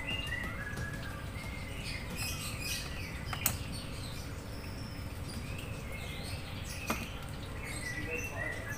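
Small birds chirping in short calls over steady low background noise, with two sharp clicks, one about three and a half seconds in and a fainter one about seven seconds in.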